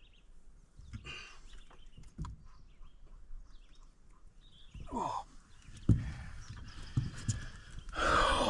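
Scattered knocks and thumps in a small fishing boat as a freshly netted northern pike is handled and brought aboard. Short breaths and a brief falling-pitched exclamation come about five seconds in.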